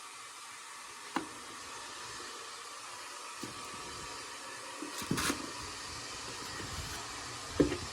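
Steady hiss of background noise with a few short knocks: one about a second in, a small cluster around five seconds in, and a sharper one near the end.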